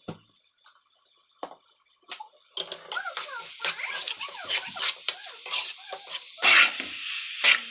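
A metal spoon stirring and scraping chopped mushrooms, tomatoes and onions in a metal cooking pot, with a frying sizzle. It starts about two and a half seconds in, as a run of quick scrapes and clicks, and pitched calls sound in the background.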